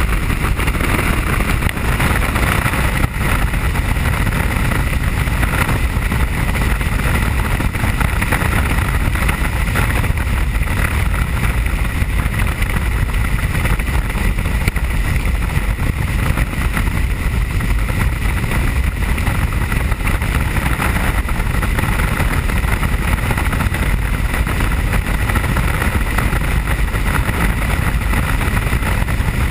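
Helicopter in flight heard from inside the cabin: a loud, steady drone of engine and rotor.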